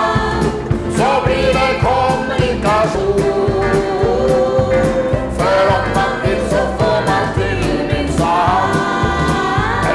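Country song played by a band with a steady beat, with several voices singing long held notes over it.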